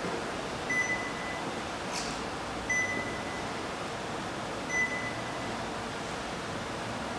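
Three short electronic beeps, high and even in pitch, about two seconds apart, over a steady hiss.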